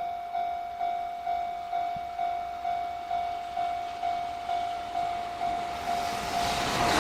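Japanese level-crossing warning bell ringing, one tone struck about twice a second. From about six seconds in, the rising noise of an approaching freight train begins to swamp it.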